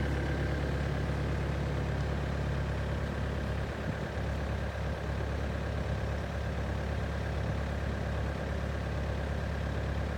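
The diesel engine of a 2013 Hyundai CR80-9 excavator idling steadily, with a low even hum.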